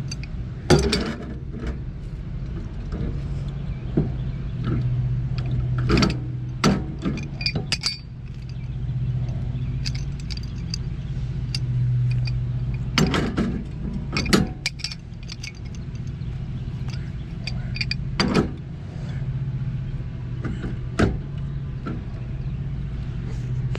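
Scattered metallic clinks and knocks from handling and tightening galvanized gas-pipe fittings with tools, over a steady low machine hum.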